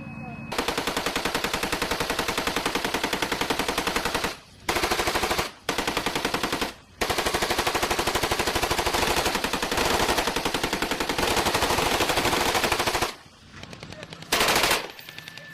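Vehicle-mounted automatic gun firing in long bursts: a rapid, even stream of shots that breaks off briefly three times, then runs for about six seconds without a break. A short burst follows near the end.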